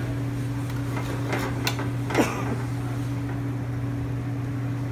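Steady low hum of a commercial kitchen's ventilation fan, with a few light clinks and scrapes of a ladle stirring curry in a metal pan about one to two seconds in.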